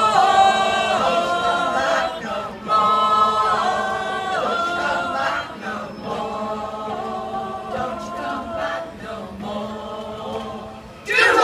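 Mixed choir of men's and women's voices singing unaccompanied, in long held notes that change from note to note. Right at the end the song stops and the crowd breaks into cheering.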